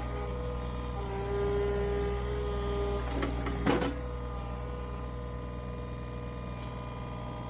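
John Deere 35G mini excavator's diesel engine running steadily while the boom and bucket work against the mud, with a held whine that stops about three seconds in, followed by a short clatter of metal.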